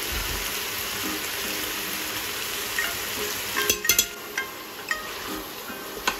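Meat and onions sizzling as they sear in a metal pot. About two-thirds of the way through, a metal spoon clicks sharply against the pot a few times, and near the end a wooden spoon knocks and scrapes as it stirs.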